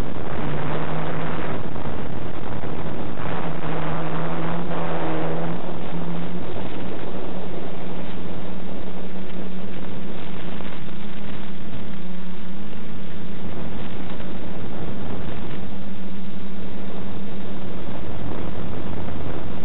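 Quadcopter's DJI E300 2212 920kv motors spinning 9x4 props in flight, a steady buzzing hum with rushing air noise. The pitch steps up slightly about six seconds in and wavers around twelve seconds.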